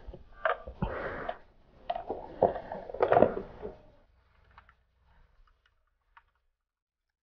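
Metal step grill plate handled and set onto the plastic tank cover of a Suzuki Raider 150 Fi motorcycle, with irregular knocks, clicks and scraping. After about four seconds it gives way to near silence with a few faint ticks.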